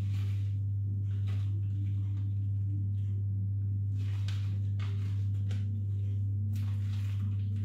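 Plastic bag of grated cheese crinkling and rustling several times as cheese is shaken out of it, over a steady low hum.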